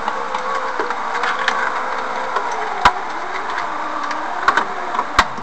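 An aftermarket electric window-lift motor driving a Lada VAZ 'classic' cable window regulator, raising the door glass: a steady whine that sags a little lower partway through, over the rustle of the cable running over its rollers. There are a couple of sharp clicks.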